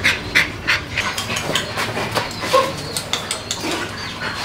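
Puppies moving about and jostling on a concrete floor: a run of short scratchy clicks, thickest in the first second, and a brief whimper about two and a half seconds in.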